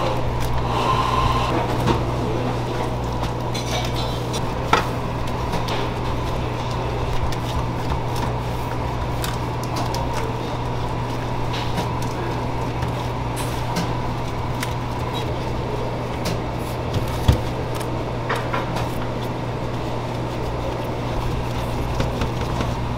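Steady low machine hum under a constant noise floor, with light scattered clatter and two sharper knocks, about five seconds in and again past seventeen seconds.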